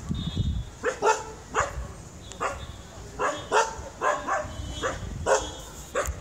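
A dog barking repeatedly at monkeys: about a dozen short, sharp barks at uneven intervals, some in quick pairs.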